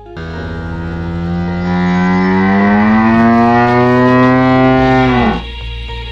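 A long, loud animal call over background music. It holds for about five seconds, rising slowly in pitch, then drops and stops abruptly.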